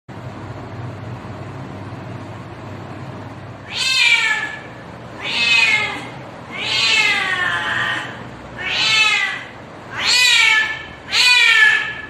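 Domestic cat's mating call: a run of six drawn-out meows about a second apart, each sliding down in pitch, beginning about four seconds in over a low steady hum. The third call is held longer than the rest.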